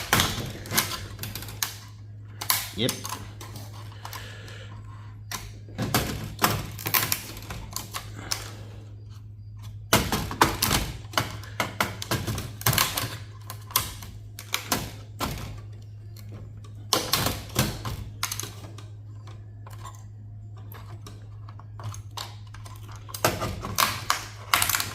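Irregular clicking, tapping and clattering of small metal and plastic server parts being handled and pried apart by hand, with quieter pauses between bursts, over a steady low hum.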